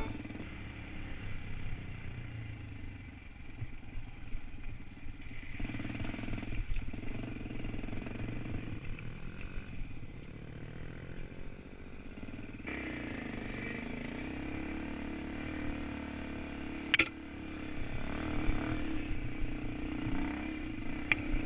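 Off-road dirt bike engine running as it is ridden over a rocky trail, its pitch rising and falling with the throttle. Two sharp knocks come in the later part.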